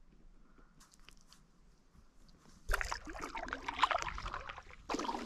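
Paddle strokes splashing and sloshing water beside a stand-up paddle board. It starts about two and a half seconds in, after a near-quiet start.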